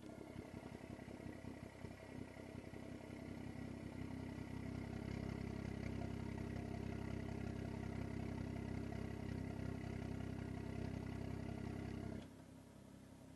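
BMW F30 335i's turbocharged inline-six running steadily through an iPE valvetronic exhaust with its valves open, a deep steady drone that grows louder about four seconds in. About twelve seconds in the valves close and the exhaust note drops off sharply to a quiet hum.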